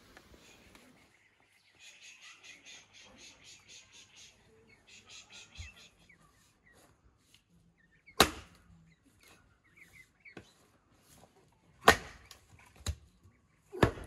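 An axe splitting a log on a wooden chopping block: three loud, sharp blows, the first about halfway through and two more near the end, with a lighter knock between the last two. Before them a bird chirps rapidly in short repeated notes.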